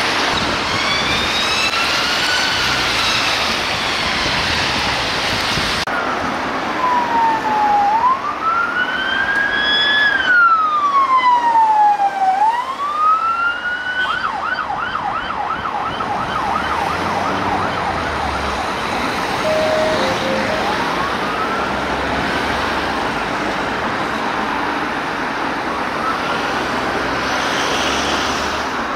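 Emergency vehicle siren sounding a slow rising-and-falling wail, switching about halfway through to a fast yelp for several seconds, then back to the wail, over road traffic noise.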